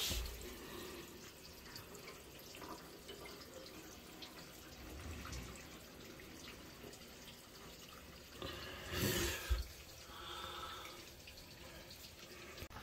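Faint dripping of water under a bath, from leaking hot and cold supply pipes, with a brief louder rustling noise about nine seconds in.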